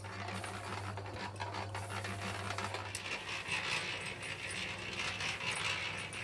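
Electric cement mixer's motor humming steadily. About three seconds in it gives way to the scraping and small clicking knocks of old mortar being chipped out of stone wall joints with a hand tool.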